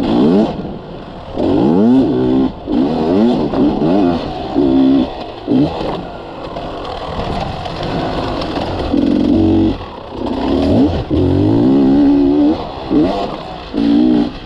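Beta Xtrainer two-stroke dirt bike engine revving hard under load, its pitch climbing steeply and dropping away several times as the throttle is opened and shut.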